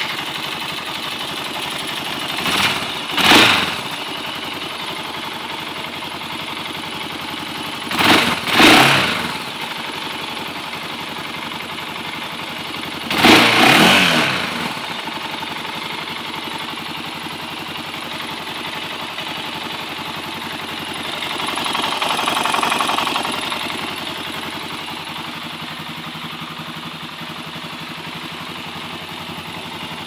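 Honda TRX400EX ATV's air-cooled single-cylinder four-stroke engine idling, heard close up at the cylinder, with a noise the owner finds strange. It is blipped in short revs a few times, twice in quick succession once, then given a slower, gentler rise and fall later on before settling back to idle.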